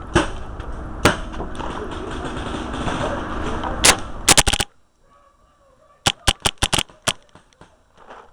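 Paintball marker firing: a quick run of about four shots, then a string of about seven shots a little over a second later. Before that, a loud rumbling rub of handling noise on the barrel-mounted camera cuts off suddenly.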